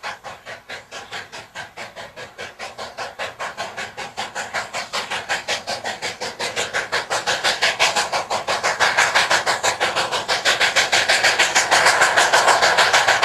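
Steam locomotive working hard as it approaches, its exhaust chuffing in an even rhythm of several beats a second and growing steadily louder as it nears.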